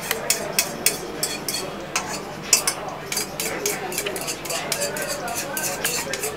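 Metal kitchen utensil clicking irregularly against a dish, several quick strikes a second, as food is stirred or beaten by hand.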